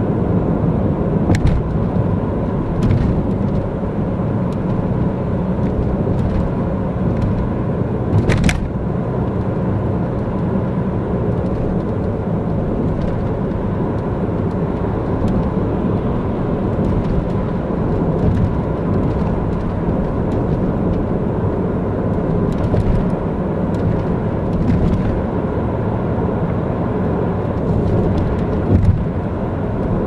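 Steady engine and tyre noise of a car driving along a winding road, heard from inside the cabin, with a few short clicks, the sharpest about eight seconds in.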